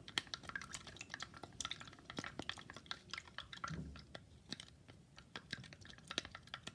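Slime being stirred in a container of water: a quick, irregular run of small wet squelches and clicks from the stirring utensil against the container.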